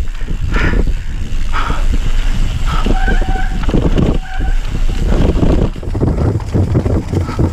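Mountain bike riding fast down a dirt singletrack: tyres running over dirt and grass, the bike rattling over bumps, and wind on the camera microphone. A brief high whine sounds about three seconds in and again just after four seconds.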